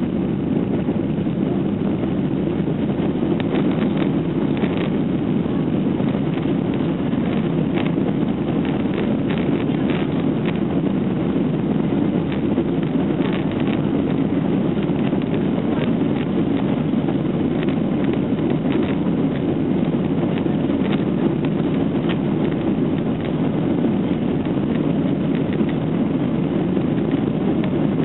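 Jet engines of a Ryanair Boeing 737 at takeoff power, heard from inside the cabin as a loud, steady low rumble during the takeoff roll, with scattered clicks and rattles mostly in the first half.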